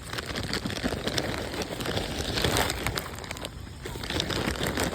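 Crinkling and crackling of a snack food bag being handled as corn chips and cereal are shaken out for birds, with many small irregular ticks.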